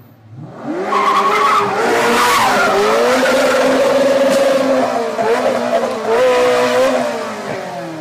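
Sports car engine revving hard while the car slides sideways with its tyres squealing, starting about a second in and easing off near the end.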